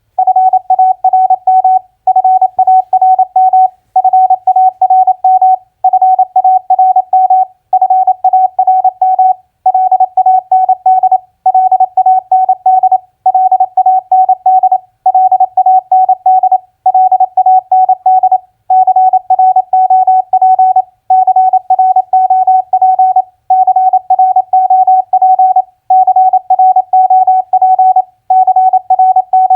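Morse code sent at 28 words per minute: a single steady beep tone keyed rapidly into dots and dashes, spelling four-letter words, with a short pause after each word about every two seconds.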